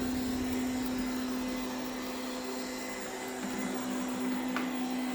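Ziglint robot vacuum cleaner running on its highest suction setting ('brute force mode'): a steady motor hum over an even hiss.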